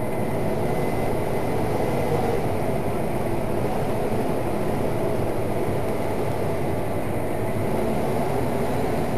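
Farm tractor running steadily while pulling a grain trailer across a field, a constant low rumble heard from inside the cab.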